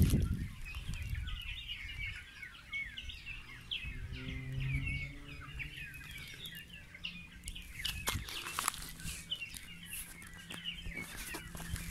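Many small birds chirping continuously in a dense chorus of short, quick calls. A steady low hum joins a few seconds in, and a few sharp clicks come about two-thirds of the way through.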